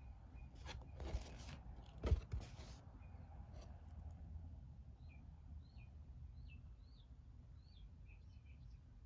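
Cardboard game boards being handled: rustling and sliding with a light knock about two seconds in. Later, a run of short, high chirps.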